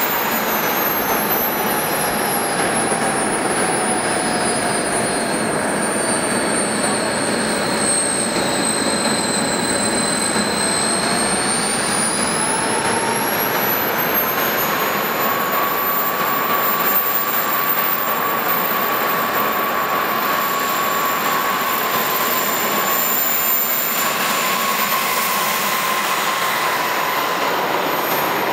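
Model turbojet engines (JetsMunt M166) on a large RC Airbus A380 whining at idle. Several whine tones sink in pitch for about ten seconds, then climb back and hold steady as the engines spool up for the taxi out.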